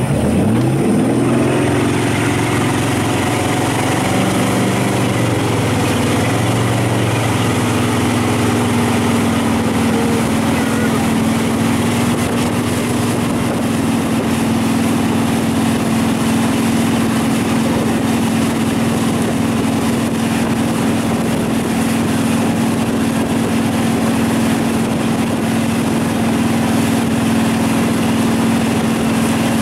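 Motorboat engine pulling a towed rider, rising in pitch over the first few seconds as the boat speeds up, then running steadily at towing speed. The rush of the boat's wake and spray goes along with it.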